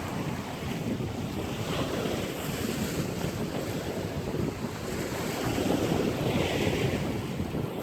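Wind buffeting the microphone in gusts, a low rumbling noise that swells and eases.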